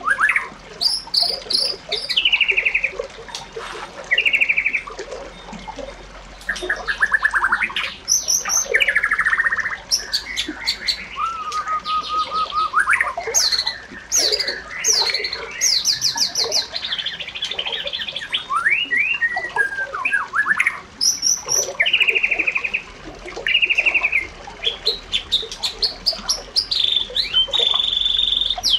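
Birds chirping and singing: a busy run of short chirps, rapid trills and sliding whistles, one after another with few gaps.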